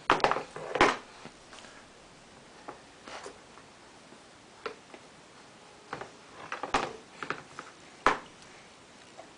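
Irregular sharp clicks and knocks of a baby handling things while eating, the loudest within the first second and again about eight seconds in.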